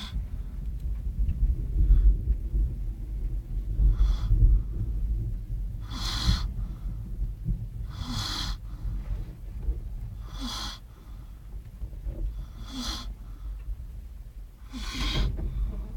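A sleeping man snoring, with a loud breath about every two to two and a half seconds over a steady low rumble.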